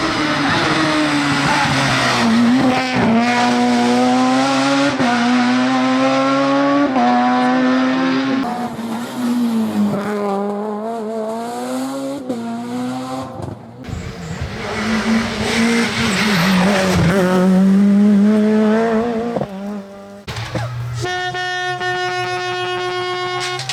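F2000 rally car engine at full throttle, its pitch climbing and dropping sharply again and again as it shifts through the gears, with some tyre squeal. Near the end it cuts off and a steady, evenly pitched sound takes over.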